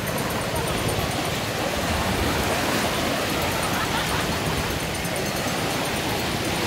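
Steady wind buffeting the microphone over small waves washing onto the shore.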